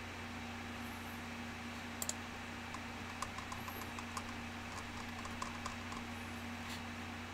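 Scattered clicks of computer keys being pressed, with a sharp double click about two seconds in, over a steady electrical hum and microphone hiss.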